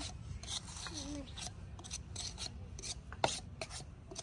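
Gritty scraping of wet cement in a hand-worked flower-pot mold, in short repeated rasping strokes, with one sharp knock about three seconds in.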